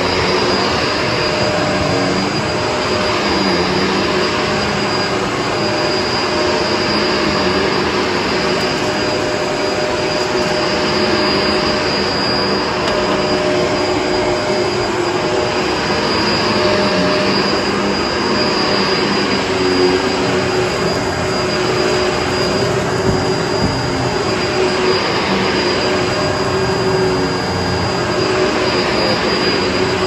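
Bissell MultiClean upright vacuum cleaner running steadily as it is pushed over carpet: a constant motor hum with a thin high whine above it.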